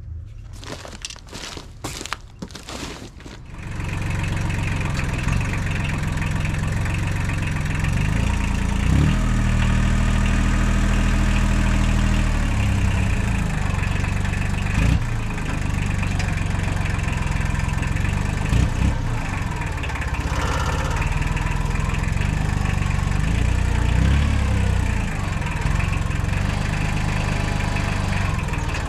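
Several sharp metal knocks as a heavy forged wrench is used as a hammer on the loader's pallet forks. About four seconds in, the Kubota L2350 tractor's diesel engine takes over, running loud and steady, its speed rising and falling a few times as the front loader lifts the log.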